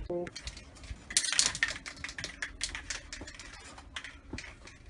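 Rapid, irregular clicking and rattling as aerosol spray cans and bits on a workbench are handled, starting about a second in and thinning out near the end.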